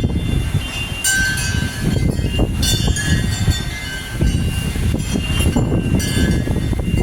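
Strong hurricane wind blowing and buffeting the microphone: a heavy low rumble with hiss that surges in gusts and eases briefly about four seconds in.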